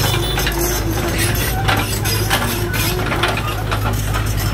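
Mini excavator's diesel engine running steadily, with scattered short clinks and knocks of metal and stone.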